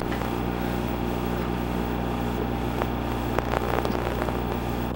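Steady low electrical hum with a ladder of overtones, under a constant hiss, with a few faint clicks.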